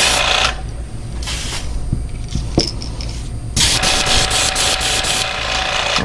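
Airbrush spraying paint in bursts of hissing air as the trigger is pulled and let go: one burst stops about half a second in, a short one follows just after a second, and a longer one runs near the end.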